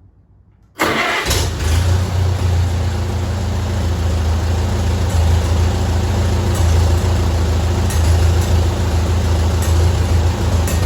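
1953 Farmall Super A tractor's four-cylinder gasoline engine comes in abruptly about a second in, then runs steadily at idle with a strong low hum.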